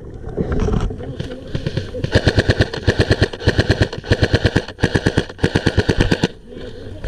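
Airsoft electric rifle firing on full auto in several rapid bursts, starting about two seconds in and stopping about a second before the end.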